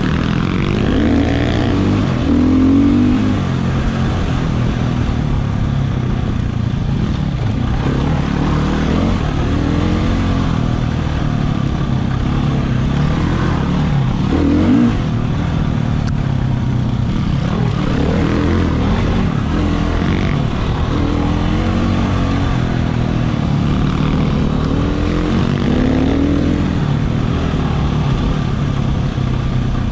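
Husqvarna 300 two-stroke dirt bike engine heard close up from the rider's helmet, revving up and falling back again and again as it is ridden through the gears on a rough trail.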